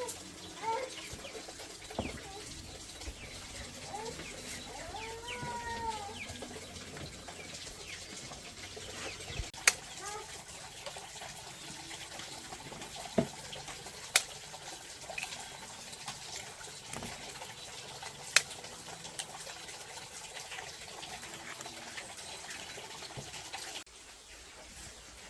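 Chickens clucking, with a few arched calls about five seconds in, over a steady background hiss. Several sharp clicks stand out, the loudest near the middle.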